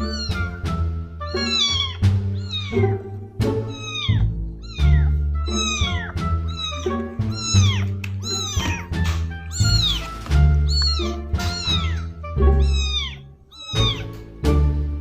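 Kittens meowing over and over, short high-pitched cries that fall in pitch, about two a second, over background music with a steady bass line.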